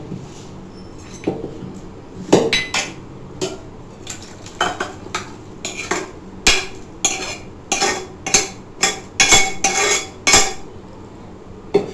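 Metal kitchenware clattering: a steel ladle knocking and scraping against an aluminium pressure cooker and a steel bowl as curry is tipped and scraped from the cooker into the bowl. The knocks and scrapes come irregularly and grow busier in the second half.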